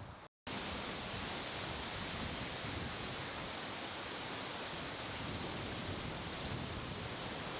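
Steady rush of a rainstorm, wind and rain, starting abruptly just after a brief gap near the start.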